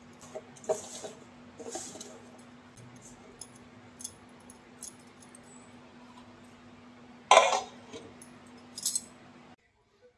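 Hands tossing sliced bitter gourd with salt and flour in a steel bowl: short gritty rustles with glass bangles jangling, over a steady hum. A loud clatter comes about seven seconds in and a smaller one shortly after.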